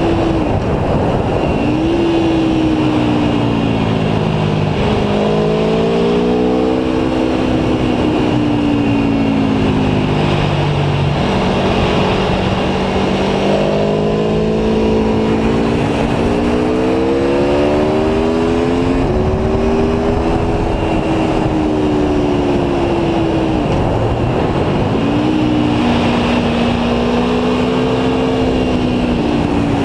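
Aprilia Tuono V4 1100 Factory's V4 engine pulling hard and shifting up through the gears: its pitch climbs, then drops sharply at each upshift, several times. A steady rush of wind noise runs underneath.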